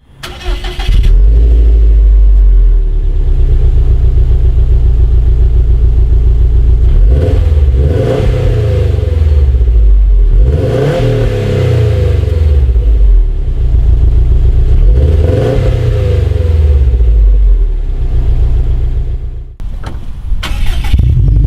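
2017 Subaru STI's turbocharged 2.5-litre flat-four running through its exhaust, idling and then revved three times, each rev rising and falling back to idle. It drops out briefly near the end before the engine sound picks up again.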